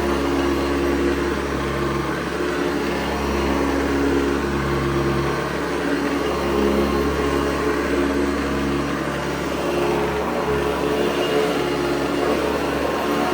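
Hoover Convertible U4387 upright vacuum cleaner running, a steady motor hum and whine that wavers slightly in pitch every few seconds. The motor sounds healthy, and it drives the brush roll through a badly worn belt.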